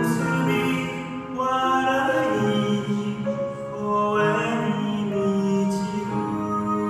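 Recorded gospel choir music: mixed voices singing slow held harmonies that shift from chord to chord.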